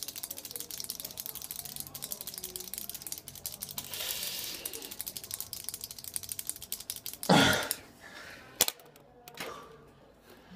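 Rapid, continuous clicking of hand-held pens worked as fast as possible in a race. The clicking stops about seven seconds in, followed by a loud short burst of noise and a couple of fainter ones.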